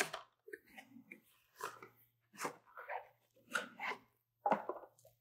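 Cardboard presentation box being opened by gloved hands: a run of short, irregular scrapes and rustles as the inner box is slid out of its sleeve.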